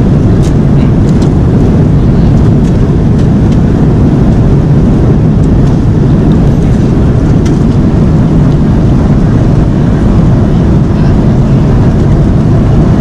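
Steady low roar of a jet airliner's cabin noise in flight, with a few faint light clicks scattered through it.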